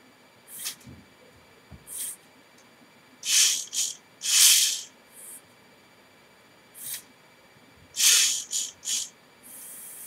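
Motors of a home-built K'NEX claw machine running in short spurts as the joystick is worked. Each spurt is a brief, high, hissing whir, about ten in all, irregularly spaced. Near the end a steady hiss sets in.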